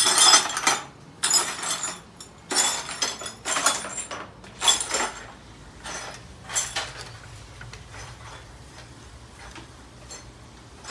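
Broken glass shards swept with a broom into a plastic dustpan: about five clinking, scraping strokes over roughly five seconds. It then goes much quieter, with a low steady hum and a few faint clicks.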